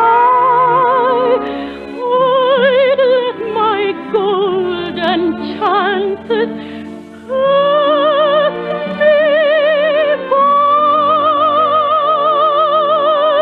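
Soprano singing with a wide, even vibrato over orchestral accompaniment, heard through the narrow, dull sound of an early-1950s broadcast recording. A run of shorter notes in the middle gives way to long held high notes.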